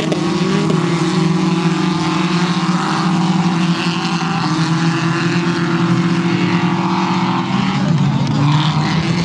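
Engines of several small hatchback race cars running hard at high revs on a dirt track, a loud steady drone with a brief dip and change in pitch about seven and a half seconds in.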